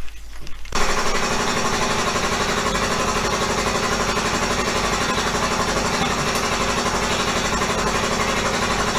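A small motor-driven tool starts up about a second in and runs steadily with a fast, even chatter.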